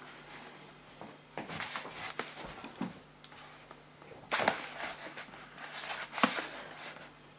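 Cardboard product box being opened by hand: flaps and packaging scraping and rustling in several short bursts, the sharpest about four seconds in.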